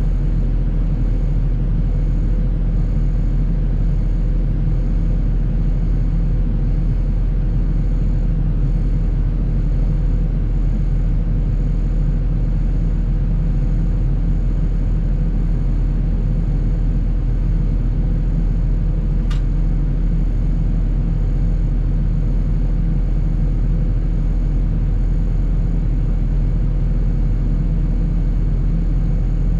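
John Deere 250G excavator's diesel engine running steadily at an even throttle, a constant low rumble, with one brief sharp click about two-thirds of the way through.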